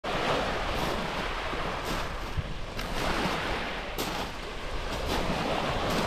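Small Black Sea waves breaking and washing up a pebble beach: a steady wash of surf that swells and eases, with brief crackling moments.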